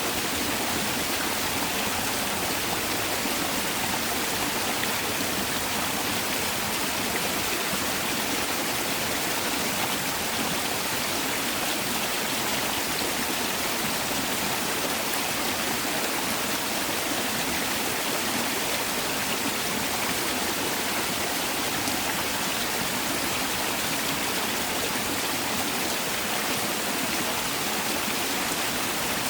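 Mountain valley stream: water rushing steadily over rocks, an even, unbroken rush.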